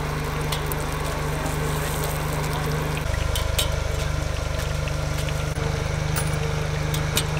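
A steady low machine hum that gets louder about three seconds in, with scattered light clicks and clinks over it.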